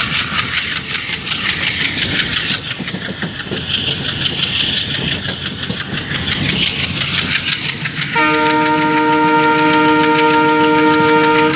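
Passenger train running at speed: steady wheel-on-rail rumble with a fast, even clacking. About eight seconds in, the WDM3A diesel locomotive's horn sounds one steady blast of several tones lasting about three and a half seconds, the loudest sound here.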